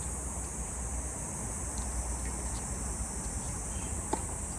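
Steady high-pitched buzzing of summer insects, most likely cicadas, under a low rumble, with faint ticks and one sharp knock about four seconds in.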